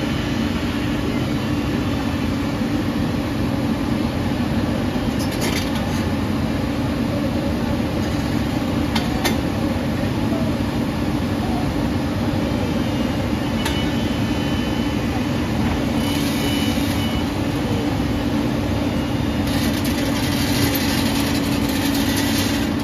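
Two hydraulic excavators' diesel engines running steadily at work, over the constant rush of a fast river, with a few sharp clicks and knocks.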